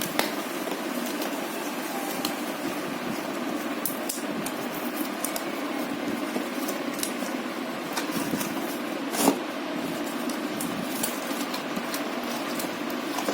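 Steady background noise, like a fan or room hum, with scattered light clicks and taps from items being handled. One sharper click comes about nine seconds in.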